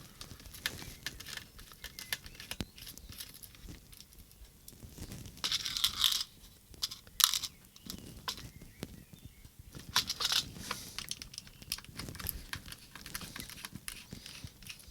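Plastic case and small parts of an RC transmitter being handled and worked on with small tools: scattered light clicks and ticks, with two short scraping, rustling bursts about five to six seconds in and again at about ten seconds.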